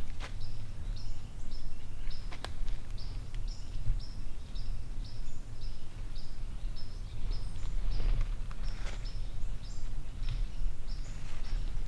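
A bird calling in a steady series of short, high notes, about three a second, over a low rumble, with a few sharp clicks.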